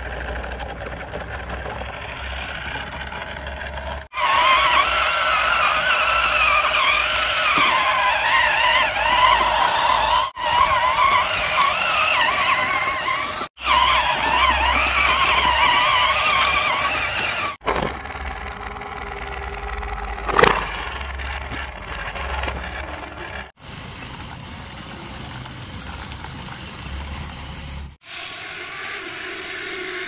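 Small electric motors and plastic gearboxes of toy RC vehicles whining, the pitch wavering up and down as they strain under load. The whine is loudest through the first half and is broken by several abrupt cuts, with a sharp click a little after the middle.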